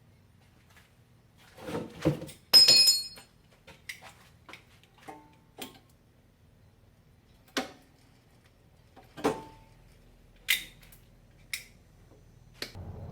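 Scattered knocks and metallic clinks of tools and steel parts being handled, with one loud ringing clang about two and a half seconds in. A steady machine noise starts just before the end.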